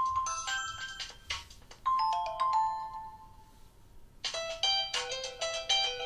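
Ringtone previews played on a Nokia Lumia 1520, short electronic chime melodies one after another. About two seconds in, a falling run of notes starts and fades away. A busier new melody begins about four seconds in.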